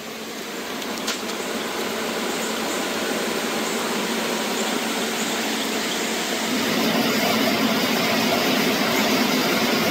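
Fast, swollen floodwater rushing under a railroad bridge, a steady rushing roar that grows louder about two-thirds of the way through.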